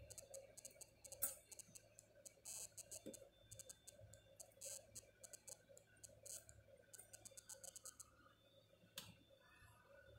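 Soldering iron tip working over the metal shield of a phone logic board: faint, rapid high-pitched crackling and clicking, with a sharper click about a second in and another near the end.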